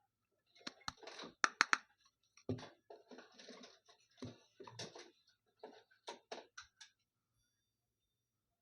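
Packaging being handled during an unboxing: irregular rustling and scraping with several sharp clicks, dying away about seven seconds in.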